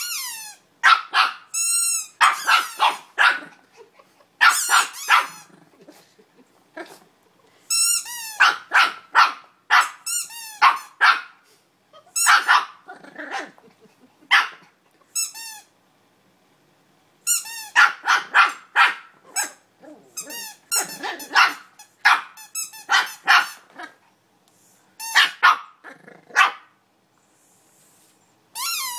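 Border terrier puppy barking in rapid runs of high-pitched yaps at a rubber squeaky toy, with squeaks from the toy mixed in. There are short pauses about halfway through and near the end.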